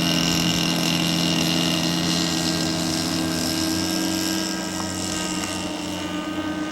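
Radio-controlled model airplane engine running steadily at high power during takeoff, its tone holding level and gradually getting quieter as the plane climbs away.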